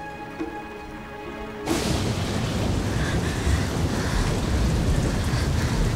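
Soft drama score with held notes, cut off abruptly about a second and a half in by a loud, heavy torrential downpour with a low thunder rumble underneath.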